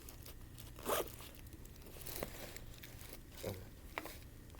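Handling noise: a few short rustling, scraping sounds of objects being handled, the sharpest about a second in.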